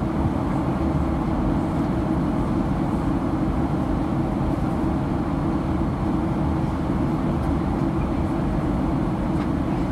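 Steady low roar of a Boeing 737-900's cabin noise, the engines and rushing air heard from a seat inside the cabin.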